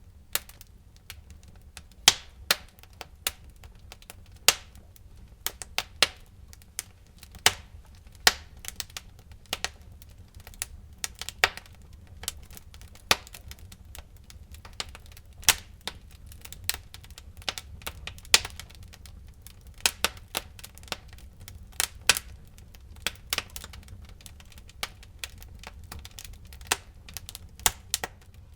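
Wood fire crackling and popping: irregular sharp snaps, a few each second, over a low steady rumble of the burning fire.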